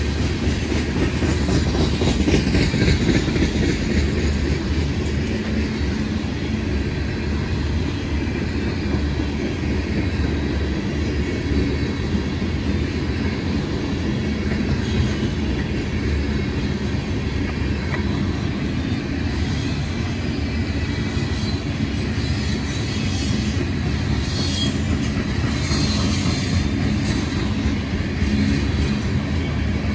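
Freight train rolling past, its cars rumbling steadily along the rails.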